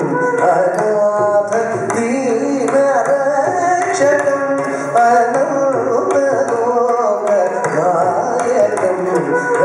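Indian classical-style song with a singing voice over drum percussion, playing steadily.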